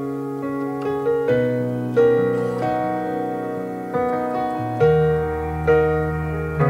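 Yamaha digital keyboard playing a slow progression of sustained piano chords, a new chord struck roughly once a second.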